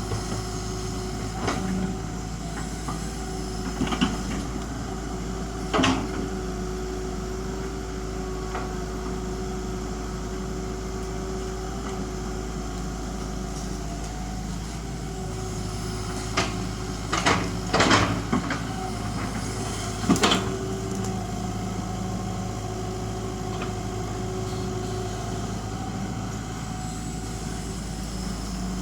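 Excavator diesel engine running steadily, with a handful of sharp knocks from the machine working at intervals, a cluster of them a little past halfway.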